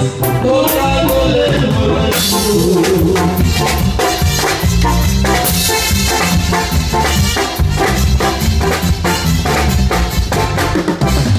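Loud dance music. A melody line carries the first couple of seconds, then a drum kit takes over with a busy, steady beat over a deep bass.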